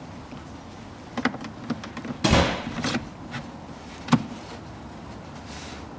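Plastic cabin-filter cassette of a Hyundai Solaris being slid into its housing behind the glovebox: a few light plastic clicks and knocks, a louder scraping rustle a little past two seconds in, and a sharp click about four seconds in.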